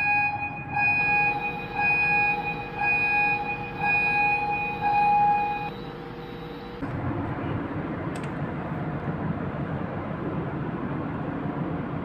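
Steering gear alarm buzzer sounding a pulsing tone about once a second, the main power failure alarm set off by switching off the main supply breaker. It stops about six seconds in, and a steady machinery noise follows.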